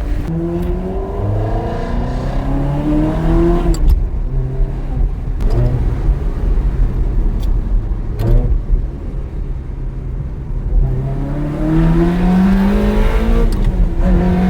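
Ferrari 360's V8 through a Tubi exhaust, accelerating through the gears of its manual gearbox. The engine note climbs, drops at upshifts about four, five and a half and eight seconds in, then climbs again near the end.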